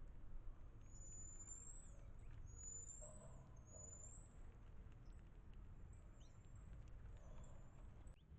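Faint, very high-pitched chirps from small animals at a feeder: three clear calls, each sweeping up then down, about a second apart in the first half, then a few fainter ones, over a low background rumble.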